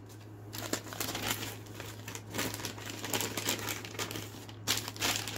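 Crinkling and rustling of an MRE food pouch being bent and worked into its flameless ration heater bag, a run of irregular crackles throughout.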